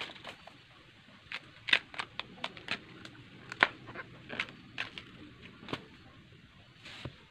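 A bamboo shoot being peeled with a knife, its tough outer sheaths cracking and snapping as they are cut and pulled away: irregular sharp cracks at uneven intervals, two louder ones early on and midway.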